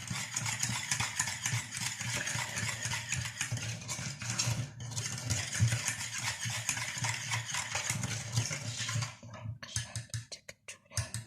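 Manual whisk beating a runny lemon-and-milk cream mixture in a bowl: a fast, continuous run of clicking and scraping. About nine seconds in it thins to a few separate knocks and stops.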